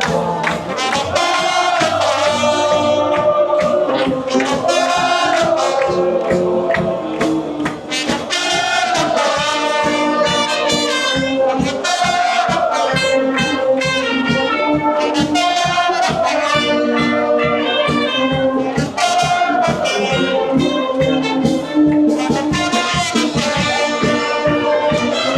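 Loud music with a melody over a steady beat, cutting in and out abruptly.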